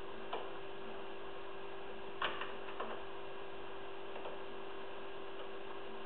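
Lock pick clicking on the discs of a seven-disc padlock while it is picked under tension: a few short sharp clicks, the loudest a little over two seconds in, over a steady electrical hum and hiss.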